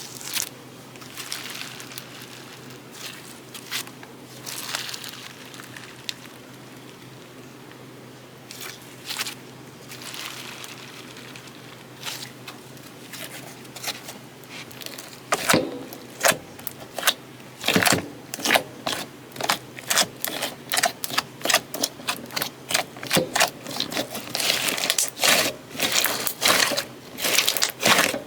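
Hands working slime, with sticky crackling and popping. The sounds are sparse at first and come thick and fast from about halfway through.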